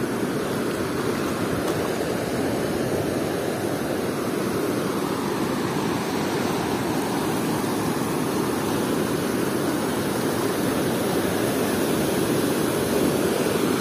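Steady rush of ocean surf, with shallow wave wash running over the sand.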